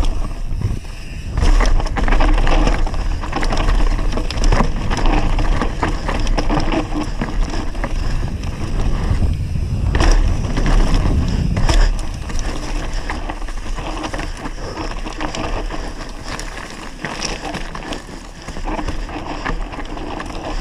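Mountain bike descending a dirt trail at speed, its tyres rolling and skidding over dirt, rocks and roots, and the bike clattering over bumps in quick, irregular knocks. Wind buffets the microphone with a low rumble, heaviest in the first half.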